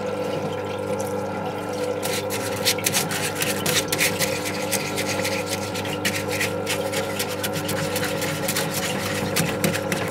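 Parts-washer pump humming steadily as cleaning solvent runs from its hose onto a greasy Volvo 240 steering rack in the tank, with a brush scrubbing the rack in quick rasping strokes from about two seconds in.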